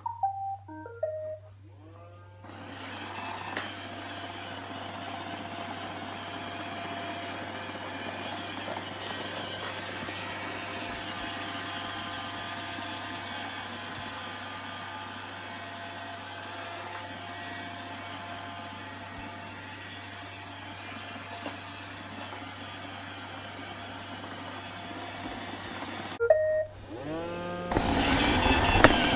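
iRobot Roomba robot vacuum playing its short start-up beeps, then running steadily, its vacuum motor, brushes and drive wheels whirring as it tows a load. Near the end it cuts off suddenly and beeps again, and a louder steady noise takes over in the last second or so.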